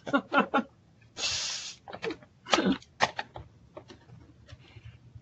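Short non-speech vocal sounds from a person, heard over a web-conference call: brief sounds at the start, a breathy hiss about a second in, more short sounds around two to three seconds in, then a few faint clicks.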